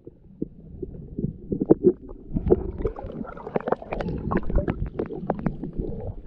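Muffled, low rumble of water heard through a camera microphone held at and under the surface of a shallow creek, with many irregular clicks and knocks.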